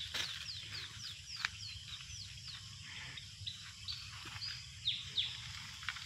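Birds chirping: quick runs of short chirps that fall in pitch, busiest in the first two seconds and again near the end, over a steady low rumble, with a couple of sharp clicks.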